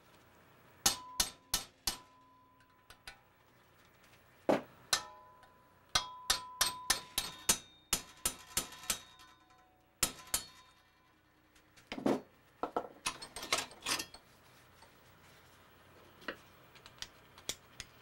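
Hammer strikes on a metal punch held against a machete handle clamped in a vise: sharp metal taps in irregular bursts of two to eight, several leaving a short ring. The last few taps are lighter.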